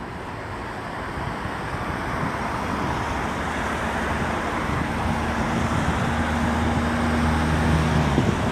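Road traffic going by, a vehicle's engine hum growing louder as it draws near and cutting off near the end, with wind on the microphone.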